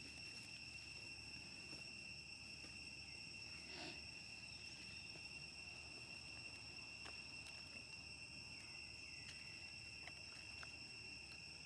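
Faint, steady high-pitched insect drone running without a break, with a few small clicks and taps.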